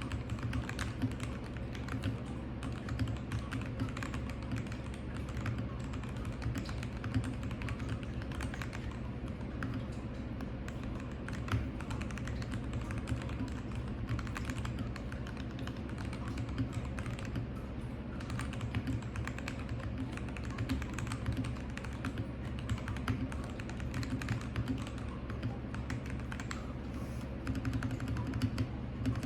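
Continuous fast typing on an RK G68 mechanical keyboard with lubed Kailh Box Red linear switches and cherry-profile keycaps: a dense, uneven run of keystroke clacks.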